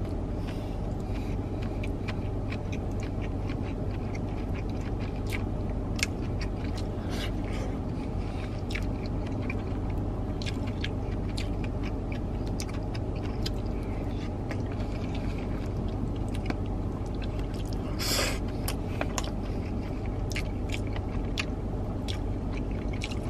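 Close-up chewing of a poke bowl of rice, cucumber and avocado: soft crunches and wet mouth clicks, with a louder noisy burst about 18 seconds in, over a steady low hum inside a car.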